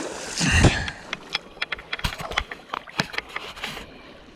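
Rocks and gravel of a creek bed clicking and knocking irregularly as someone moves carefully over them, with a louder scuff about half a second in.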